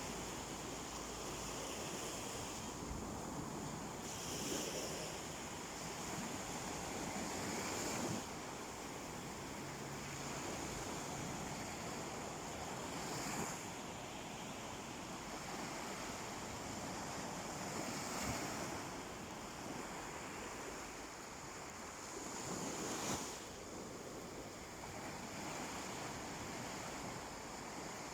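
Sea waves washing onto a beach: a continuous surf wash that swells as a wave breaks about every four to five seconds.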